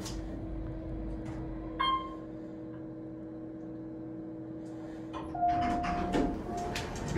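Otis hydraulic elevator car travelling with a steady hum, and a single short chime about two seconds in. Near the end the hum stops, a longer tone sounds and a clatter of clicks follows as the car doors open.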